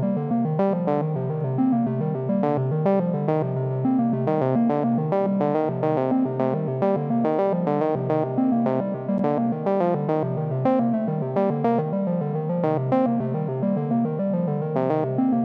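Sequenced melody from a software modular synthesizer patched like a Buchla: a steady run of short plucked notes, several a second, looping through a 16-step sequence. The tone colour of the notes changes at random from step to step.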